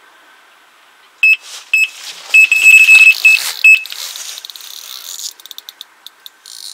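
Electronic carp bite alarm sounding a run: a few single beeps about a second in, then a rapid string of beeps as a fish takes line. A rushing hiss runs under the beeps, followed by a patter of quick clicks near the end.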